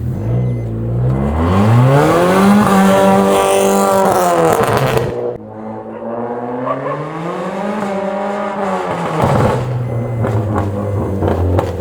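Revving of a Stage 2 remapped, decatted Maruti Ignis through its loud aftermarket Velotronic exhaust. It rises from idle to a held high rev, drops sharply when the throttle closes about five seconds in, revs up once more, and falls back to idle after about nine seconds with a few short crackles.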